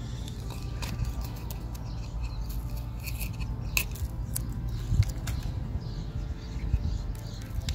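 Masking tape being peeled off the edge of a small diorama board: soft crackling and ticking with a few sharp clicks, over a low steady rumble.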